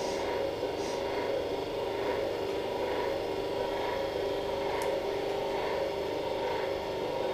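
Steady mechanical hum of operating-room equipment, several steady tones held throughout, with faint soft pulses about once a second.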